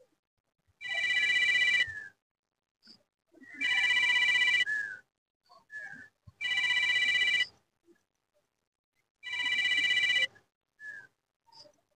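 A telephone ringing: four rings of about a second each, repeating about every three seconds, each a chord of steady high tones.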